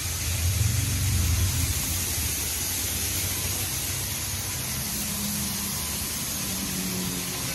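PDQ LaserWash 4000 touchless car wash spraying water onto the car: a steady hiss, with a low rumble underneath that swells for about a second and a half near the start.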